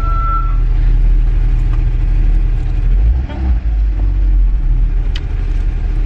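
Car engine running, a steady low rumble heard from inside the cabin, briefly dropping away about three seconds in.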